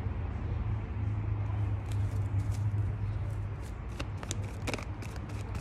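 A deck of tarot cards being shuffled by hand: quick papery flicks that begin about two seconds in and come thick and fast near the end, over a steady low rumble.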